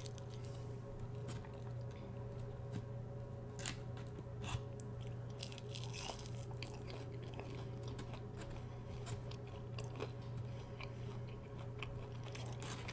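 Close-miked chewing of a fried onion ring: scattered small crunches and mouth clicks over a steady low hum.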